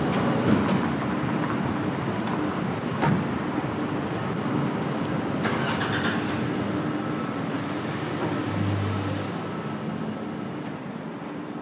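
City street ambience with road traffic, broken by a few sharp clicks, growing quieter over the last few seconds.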